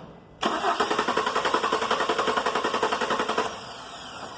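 Chevrolet Silverado's engine being cranked by the starter for about three seconds, a fast, even chugging that starts about half a second in and stops suddenly, without the engine catching. This is a crank-but-no-start, which the mechanic traces to a failed fuel pump.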